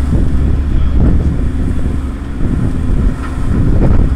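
Passenger ferry's engines running with a steady hum, under heavy wind buffeting on the microphone on the open deck.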